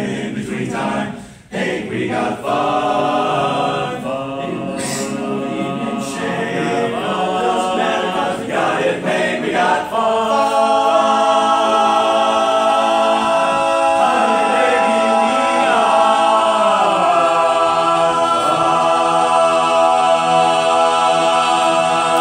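Men's barbershop chorus singing a cappella in close harmony, the closing phrases of the song. After a brief break about a second and a half in, the phrases move along, then from about ten seconds in the chorus holds long sustained chords through the finish.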